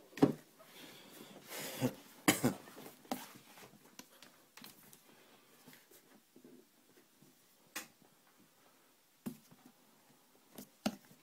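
Handling noise of a sneaker being moved and touched by hand: a few sharp knocks and soft rustles, the loudest two in the first couple of seconds, then mostly quiet with occasional taps.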